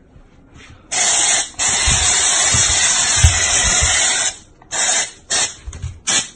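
Aerosol insect-spray can hissing as it sprays at a cockroach: one long continuous spray of about three and a half seconds, then several short bursts near the end.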